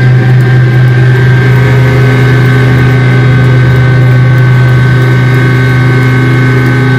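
Loud sustained electronic drone in a house-music DJ mix: a steady low hum with held tones above it and no beat.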